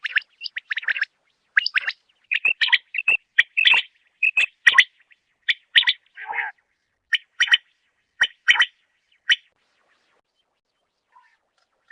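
Quail (batair) calling: a rapid run of short, sharp calls, some in quick pairs and triples, that stop about two seconds before the end.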